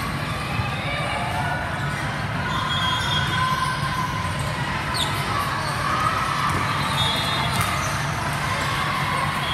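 Busy volleyball gym ambience: balls bouncing and being hit across several courts, with the echoing chatter of players and spectators as a steady din.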